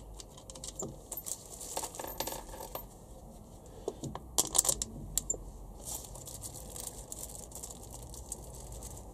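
Small metal screws clinking and ticking as they are dropped into the screw holes of a new plastic distributor cap on a Honda B18C4 distributor and settled by hand: scattered clicks in small clusters.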